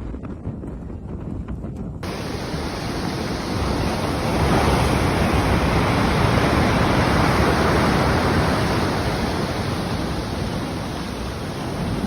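Quieter rumbling noise with a few clicks, then a sudden cut about two seconds in to a loud, steady rushing noise of a storm, which swells in the middle and eases slightly near the end.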